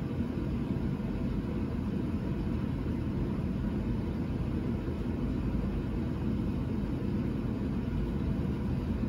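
Steady low rumble of background noise, even in level, with no distinct events.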